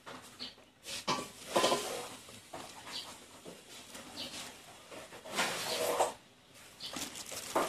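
A gloved hand stirring runny bánh xèo batter in a stainless steel bowl: wet sloshing and swishing in uneven strokes, loudest about a second and a half in and again near six seconds.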